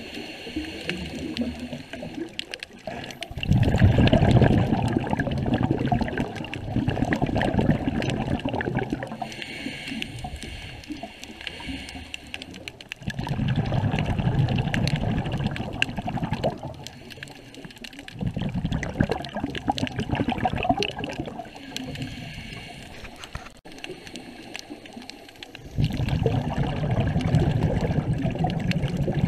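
Scuba diver breathing through a regulator underwater: loud bursts of exhaled bubbles rumbling for a few seconds at a time, recurring every few seconds with quieter stretches between.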